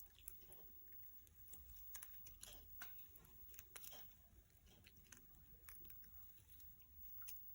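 Faint, irregular crackling and ticking from hot, crisp baklava pastry as sugar syrup is poured over it.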